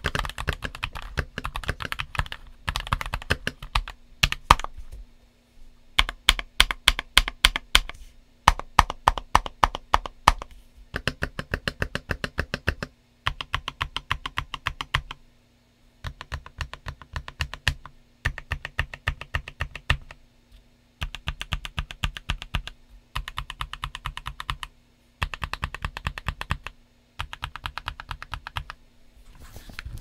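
Typing on a HelloGanss HS98T Pro mechanical keyboard fitted with Kailh Cream Pro linear switches and double-shot Cherry-profile PBT keycaps. Quick runs of key strokes come in bursts of about two seconds, with short pauses between them.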